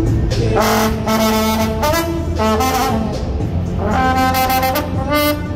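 Trombone playing a melody of short and held notes, with a longer note held near the end.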